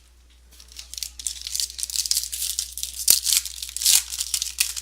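Trading-card pack wrapper being torn open and crinkled: a dense crackling rustle from about half a second in, with one sharp snap about three seconds in.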